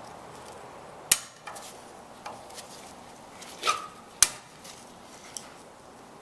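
Snap ring pliers clicking against the steel snap ring of a worn ball joint in a steering knuckle held in a vise, as the ring resists coming out: a few sharp metal clicks, the loudest about a second in and just past four seconds, one with a brief ring.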